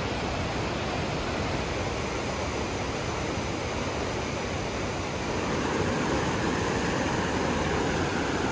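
Waterfall and the rushing whitewater below it: a steady rush of falling water, growing a little louder a bit past halfway.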